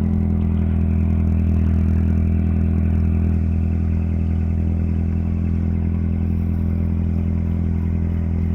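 An engine running at a steady, unchanging speed, its low hum loud and constant.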